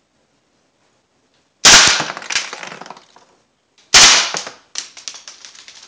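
Crosman AK1 CO2 BB rifle fired in two short full-auto bursts a little over two seconds apart. Each burst is a quick string of sharp cracks. Steel BBs strike and bounce off the metal mesh of a laptop cooling pad.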